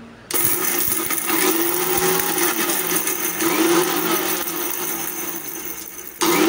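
Vidiem VStar mixer grinder running with its small steel jar, coarsely grinding garlic, dried red chillies, curry leaves and whole spices. The motor starts abruptly, runs for about six seconds, cuts out briefly and starts again near the end.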